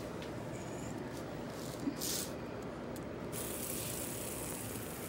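Fidget spinner spinning on a hard floor, a steady hiss that grows stronger a little past three seconds in, with a short knock and scrape about two seconds in.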